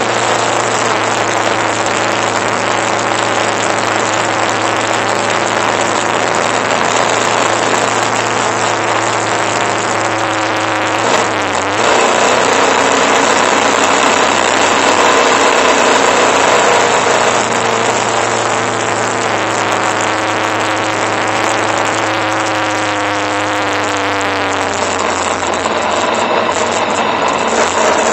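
Motorcycle engine running under steady wind rush over the mount. Its pitch dips briefly and comes back up near the middle, then falls slowly through the second half as the bike eases off.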